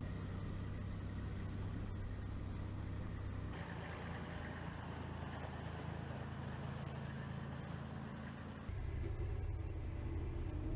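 Heavy multi-axle military transporter trucks running their diesel engines as they drive, a steady low engine hum. The sound changes abruptly about three and a half seconds in and again near nine seconds.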